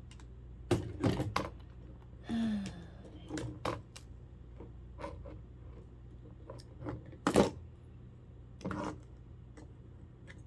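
Scattered clicks and knocks of plastic and small parts being handled as a clock radio is pulled apart by hand, with a sharper knock about seven seconds in.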